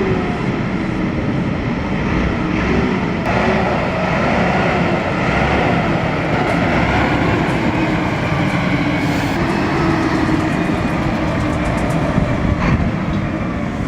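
Heavy truck engine running steadily under load, its pitch wavering slightly.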